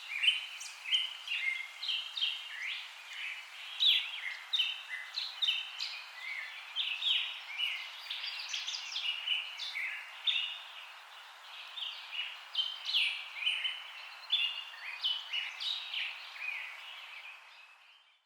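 A bird singing a rapid, continuous series of short chirps and trills, with a faint steady hiss beneath; it fades out near the end.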